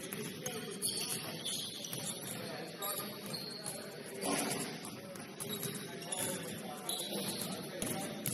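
Basketball game play on a gym court: sneakers squeaking in short high chirps several times, over a steady background din of play.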